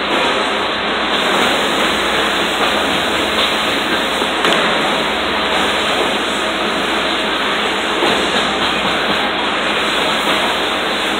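Steady, loud rushing noise, even throughout with no distinct knocks or rhythm, typical of machinery running in a metal fabrication shop.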